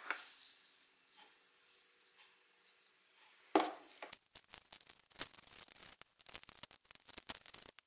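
Hands washing a strip in a plastic tub of water. It starts with faint rubbing; about three and a half seconds in, a hand goes into the water with a splash, followed by rapid sloshing and splashing as the strip is scrubbed.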